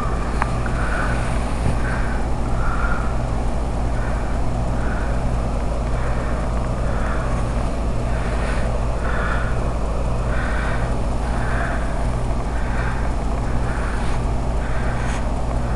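Footsteps crunching through deep fresh snow at a steady walking pace, about one step every 0.7 seconds, over a steady low rumble.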